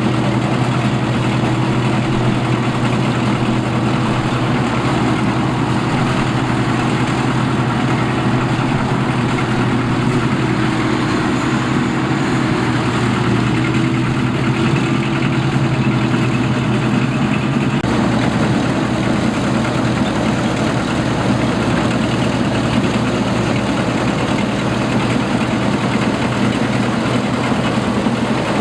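Rice combine harvester's engine running steadily under a broad mechanical clatter, its engine note changing about two-thirds of the way through.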